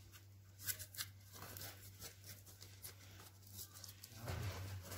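Faint rustling and light clicks of painted cardboard discs being handled and fitted together, over a low steady hum.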